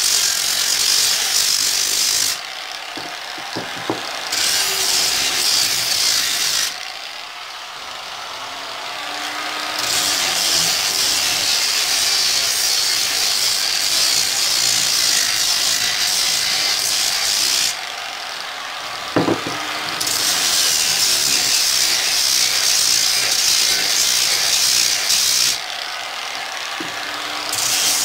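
Electric sander with a round sanding pad running across a square pine leg, a steady high, hissing rasp of the abrasive on the wood. The sanding sound drops out briefly four times and comes back.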